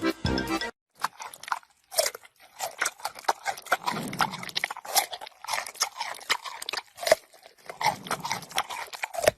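A pet chewing and crunching on hard food, with irregular crunches and clicks close to the microphone. A snatch of music cuts off just under a second in.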